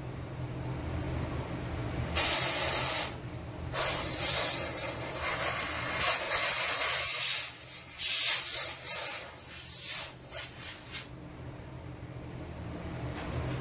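A compressed-air blow gun blasting chips off a milled part: a run of hissing air blasts of a second or two each, starting about two seconds in and stopping about three seconds before the end. A steady low hum runs underneath.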